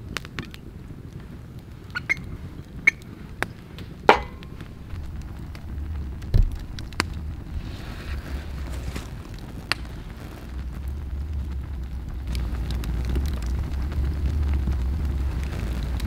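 Wood campfire crackling, with sharp pops scattered through and the loudest about four seconds in. A low rumble comes up and grows louder over the last several seconds.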